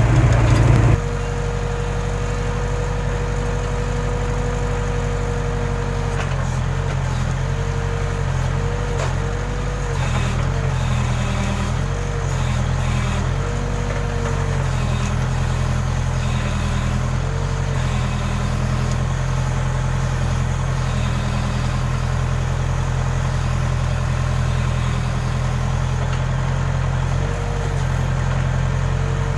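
Case backhoe loader's diesel engine running steadily, with a higher whine that comes and goes in short spells over the drone.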